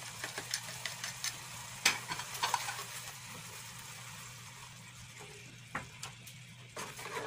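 Coconut-milk sauce simmering and sizzling in a non-stick frying pan while a spatula stirs and scrapes through it. There are many small clicks and a few sharper knocks, the loudest about two seconds in.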